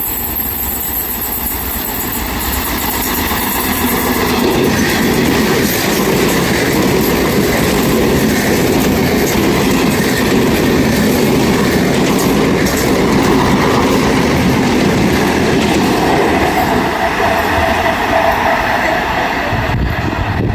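Electric multiple unit (EMU) local train running at speed: a steady, loud rumble with wheels clattering over the rail joints. It grows a little louder about four seconds in and eases off at the very end.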